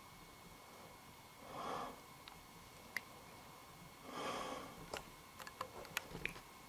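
A person breathing heavily close to the microphone: two long breaths about two and a half seconds apart, followed by a scatter of small sharp clicks and ticks.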